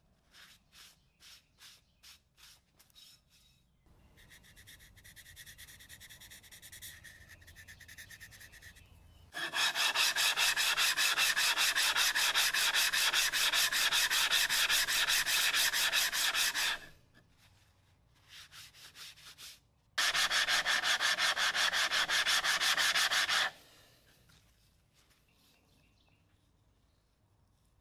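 Steel parts of a Stanley Bailey No. 4 hand plane being rubbed back and forth on a coarse diamond sharpening plate to flatten and clean them: a few short strokes at first, then two long stretches of loud, rapid scrubbing that stop a few seconds before the end.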